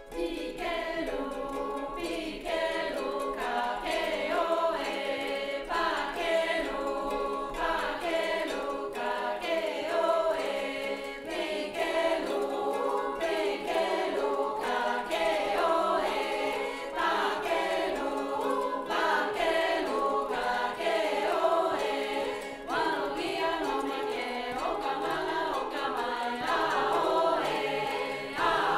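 Mixed-voice choir singing a song in the Lani language.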